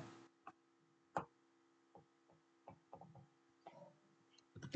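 Near silence: faint room tone with a few short, quiet clicks scattered through it, the clearest about a second in and just before the end.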